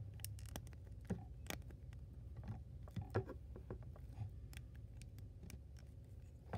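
Plastic parts of a Transformers action figure clicking irregularly as they are pushed in and folded during transformation, over a steady low hum.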